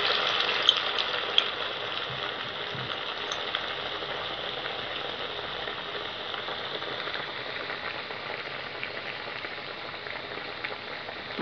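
Urad dal vadai deep-frying in hot oil in a kadai: a steady frying sizzle that eases a little as it goes on. A few faint clicks sound in the first second or so.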